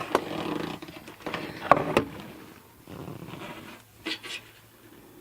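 Plastic headlight assembly being wiggled by hand, scraping and rattling with several sharp clicks, the loudest about two seconds in.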